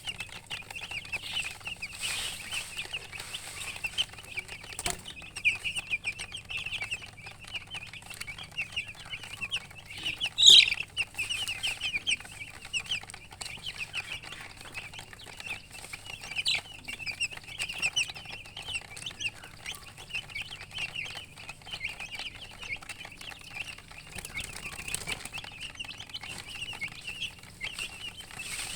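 A brood of newly hatched chicks peeping continuously, many short high chirps overlapping, with one much louder, sharper peep about ten seconds in.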